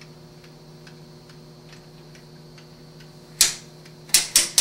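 Mechanical timer of a Schumacher SE-2158 battery charger ticking faintly over a low steady hum, then three sharp clicks near the end as the newly fitted rotary charge-rate selector switch is turned through its detent positions.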